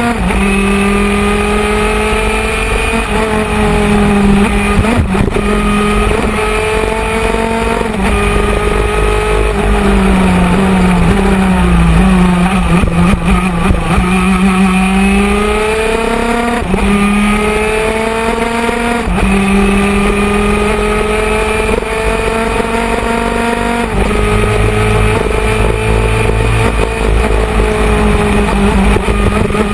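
125cc two-stroke superkart engine at racing speed, recorded on board: its pitch climbs through each gear and drops sharply at each upshift. Around the middle it sags for a few seconds, then climbs again.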